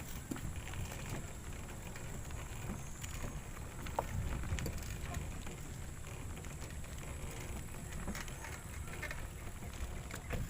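Steady low rumble of wind on the microphone, with a few faint knocks and clicks.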